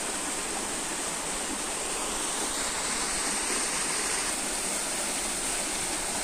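Small waterfall cascading down steep rock faces: a steady, even rush of falling water.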